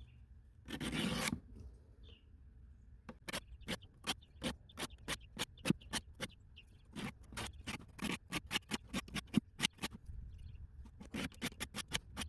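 Stainless pocketknife blade being stroked across a 300-grit diamond sharpening stone: one longer scrape about a second in, then a run of quick short strokes, about four a second, with a couple of brief pauses.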